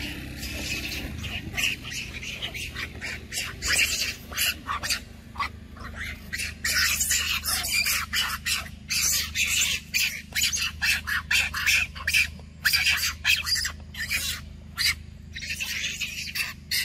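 Young macaques screeching, shrill squawking calls in quick irregular bursts.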